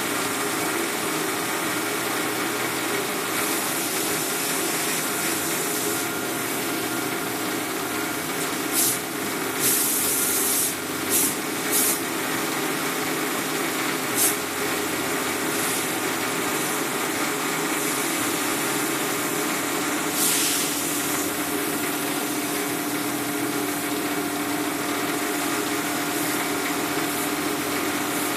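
Benchtop metal lathe running with a steady motor hum while a lathe tool cuts a spinning pen blank. A cluster of short, sharp scraping hisses comes from the cut in the middle, and one more comes about two-thirds of the way through.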